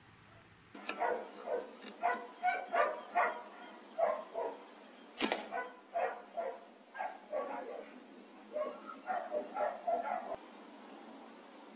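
A dog barking repeatedly in short bursts. About five seconds in, one sharp crack of a .177 Air Arms S510 pre-charged air rifle shot, with a brief ring after it.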